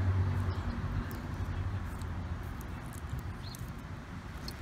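A low background rumble, strongest in the first second and easing off, with a few faint short scratches and clicks of small hands pressing flower bulbs into loose garden soil.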